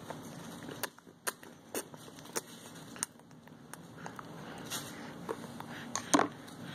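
A baby being spoon-fed oatmeal: scattered small clicks and smacks from the spoon and the baby's mouth, the loudest about six seconds in, over a steady low hum.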